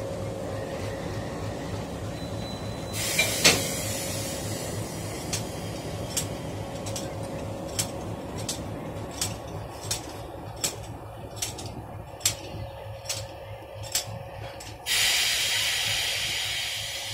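ALCo WDM3D diesel locomotive idling with a steady low throb. Over it come a short hiss with a sharp metal knock about three seconds in, then a run of sharp metallic clicks about one a second as the coupling between locomotive and coach is worked. At about fifteen seconds a loud hiss of compressed air bursts out suddenly and slowly fades, as air rushes through the connected brake hoses.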